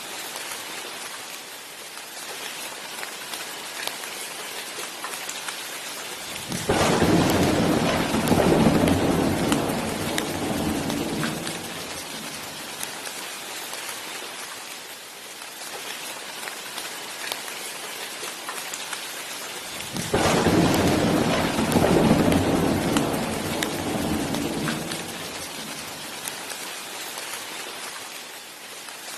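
Steady rain falling, with two rolls of thunder: one starts about a quarter of the way in and another about two-thirds through, each rumbling for several seconds before fading back under the rain.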